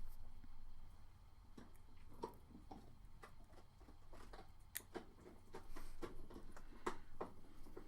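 Faint, irregular clicks and light taps of tweezers, a small wire and a plug connector being handled during soldering, over a steady low hum.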